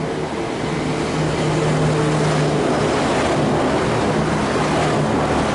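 V/Line VLocity diesel multiple unit coming through the station: its diesel engines hold a steady low note while the rumble of the train builds, loudest in the second half.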